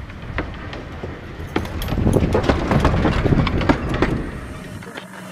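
Narrow-gauge Hunslet saddle-tank steam locomotive and its coaches passing close by, with a run of sharp clicks and clatter from the wheels on the track. It grows loudest about halfway through as the train goes past, then fades after about four seconds.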